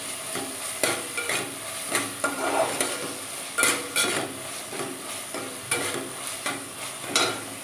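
Chopped onion and tomato frying in butter and oil in a pan with a steady sizzle, as a spatula stirs and scrapes the pan with irregular strokes about every half second. This is the onion-tomato base for pav bhaji cooking down until soft.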